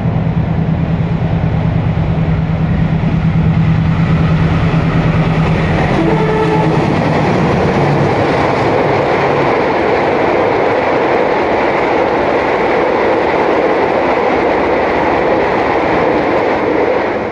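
Diesel-hauled passenger train passing at speed, around 100 km/h. A steady low locomotive drone fades about seven seconds in, leaving a loud, continuous rush and clatter of the carriages' wheels on the rails.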